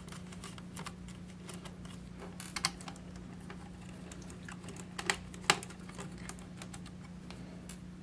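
Scattered light clicks and taps of metal and plastic as a laptop's 2.5-inch hard drive in its metal caddy is worked loose and slid out of its connector, with a few sharper clicks about two and a half and five seconds in. A steady low hum runs underneath.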